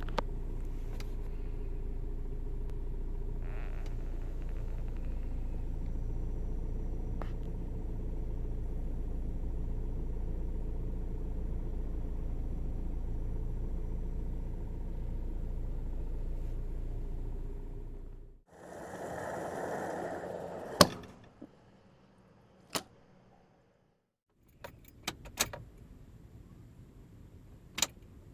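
Scion xB engine idling roughly just after the fuel tank has been filled, which the owner guesses is a bad EVAP canister purge valve. About eighteen seconds in, the engine stops, followed by a brief noise and a few sharp clicks.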